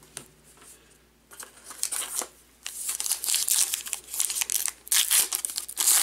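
Foil trading-card pack wrapper crinkling and tearing as it is opened by hand. The crackle starts about a second in and grows denser, loudest near the end.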